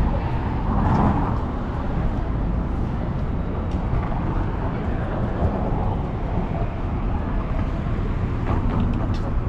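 Steady city street ambience, a continuous low rumble of traffic.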